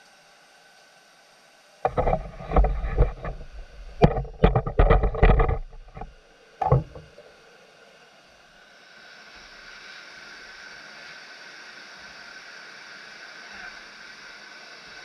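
A quick run of heavy knocks and clunks, then a steady rushing hiss of a gas burner flame starts about halfway through and keeps going, as the blade is brought up to heat for the quench.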